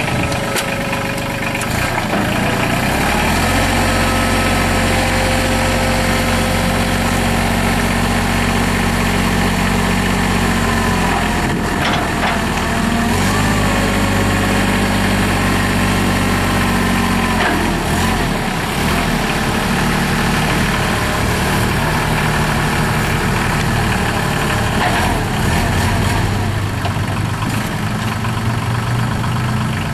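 Mahindra 3616 compact tractor's three-cylinder Mitsubishi diesel running just after start-up, its engine speed rising and falling a few times.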